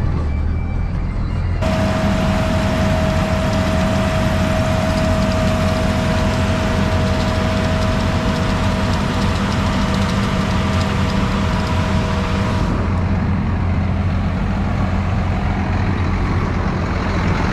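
Heavy farm machinery engine running steadily. About two seconds in, a louder rushing noise with a steady whine joins it, then falls away near the end.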